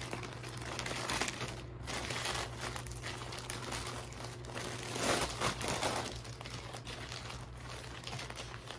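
White plastic poly mailer bag being pulled open and crinkled by hand, then the clear plastic bags of football shirts inside rustling as they are lifted out. The rustling is loudest about five seconds in.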